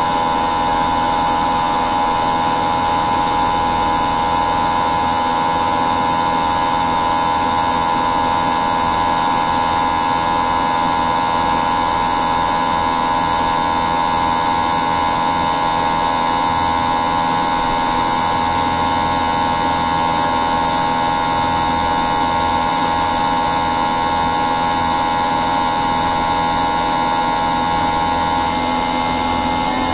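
A machine running steadily with a hum and several high, steady whining tones, which shift slightly near the end.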